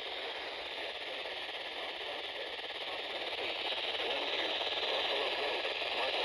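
Steady hiss of radio static from a receiver between broadcast alert messages, growing slowly louder.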